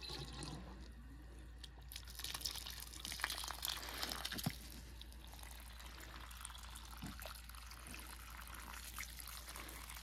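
Water from a garden hose running and splashing onto dry potting soil in a planter basket, growing louder about two seconds in.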